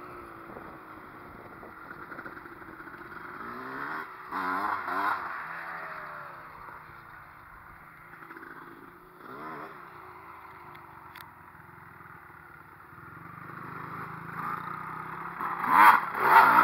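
Honda CR250 two-stroke dirt bike engine revving up and down as it is ridden round a dirt track, its pitch rising and falling repeatedly. It is fainter through the middle and gets loudest near the end as the bike comes close.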